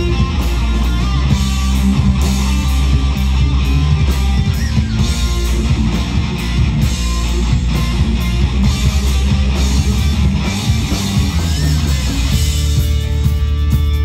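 Live rock band playing electric guitars, bass guitar and drums. About twelve seconds in, the playing gives way to held, sustained notes.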